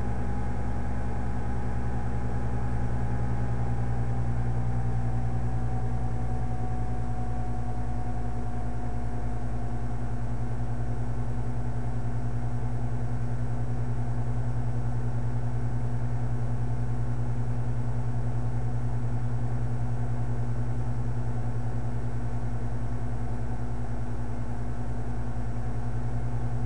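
Steady low machine hum, like a running fan or motor, with a faint whining tone that drops slightly in pitch a few seconds in.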